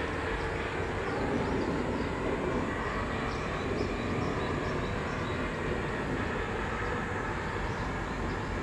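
Steady outdoor background rumble and hiss, such as distant traffic and shipyard machinery, with no single event standing out.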